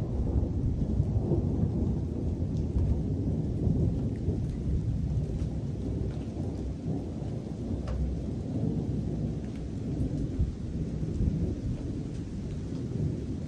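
Thunderstorm: a steady low rumble of thunder with rain, and a few faint sharp ticks.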